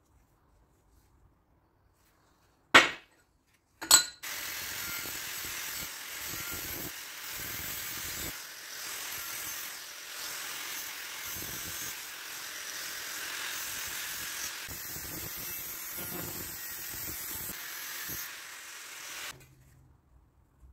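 TIG welding arc on stainless steel exhaust tubing: two sharp cracks about a second apart, then a steady hiss for about fifteen seconds that cuts off abruptly.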